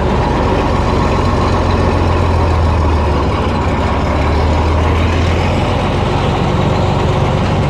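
Case IH 1682 combine's diesel engine running steadily, just after starting up.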